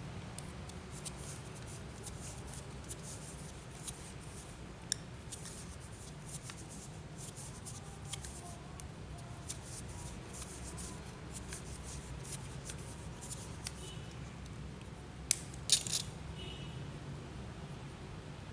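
Thread seal tape being wrapped around a fitting's threads: faint crinkling and rustling throughout, with a few small clicks and two sharper clicks near the end.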